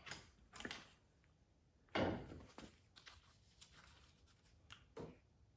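A few scattered metal clunks and scrapes as the valve body of a TH400 automatic transmission is pried loose from the case. The loudest knock comes about two seconds in, and a smaller one comes near the end.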